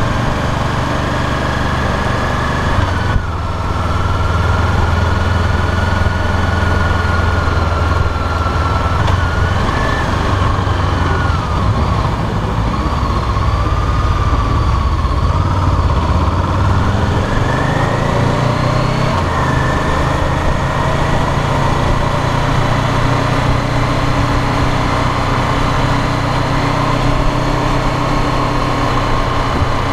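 Honda CBR500R's parallel-twin engine running under a tank-mounted camera, over a steady rush of wind and road noise. Its note breaks briefly with a click about three seconds in, sinks as the bike slows to about 18 km/h around the middle, then climbs as it accelerates to about 50 km/h and settles.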